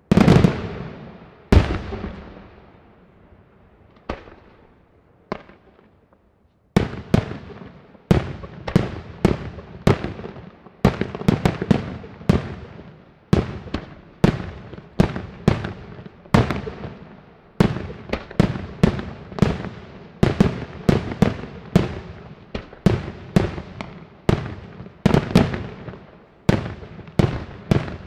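Daytime aerial fireworks shells bursting in the sky: a few separate loud bangs, each dying away with an echo, then from about seven seconds in a rapid, unbroken string of bangs, one or two a second.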